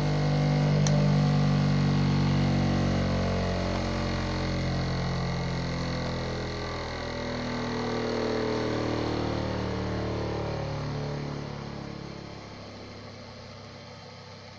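Bench grinder motor humming steadily, then fading away over the last few seconds as it runs down.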